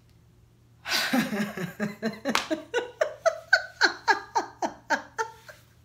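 A woman's fit of laughter: a breathy burst about a second in, then a rapid run of short 'ha' pulses, each falling in pitch, trailing off near the end.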